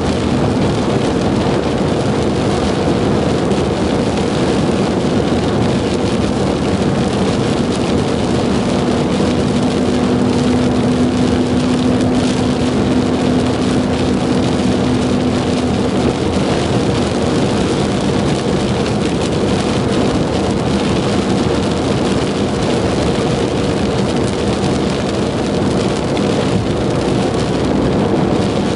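Steady noise of a car driving in a thunderstorm: engine and road hum with rain on the car. A low hum stands out for several seconds in the middle.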